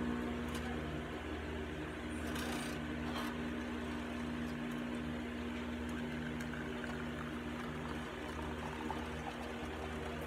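Home espresso machine's pump running with a steady hum as an espresso shot pulls into a glass cup.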